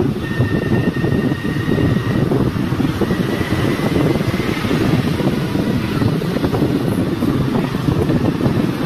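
Wind buffeting a phone's microphone on a moving scooter, a loud, steady, fluttering rush, with the scooter running underneath.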